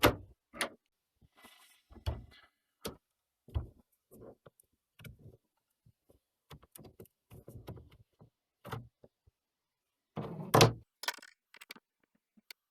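Scattered clicks, taps and knocks from handling a Lenovo G580 laptop's plastic case as it is worked on, with a louder knock about ten and a half seconds in.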